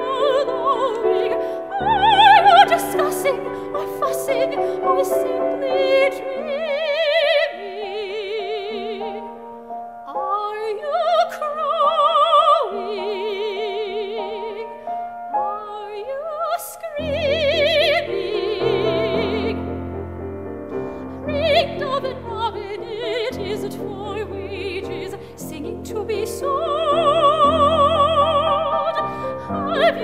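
Classically trained soprano singing long held notes with a wide vibrato, over piano accompaniment that fills out with low chords about halfway through.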